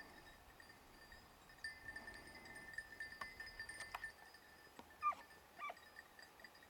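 Distant hunting dog yelping twice in quick succession, about five seconds in: a hound giving tongue on a hare's scent in the scrub.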